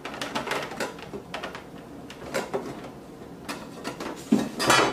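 Thin metal bottom plate of a Zojirushi hot water boiler being worked loose and pulled out by hand: a run of light clicks and scrapes of metal against the plastic housing, with a louder clatter near the end.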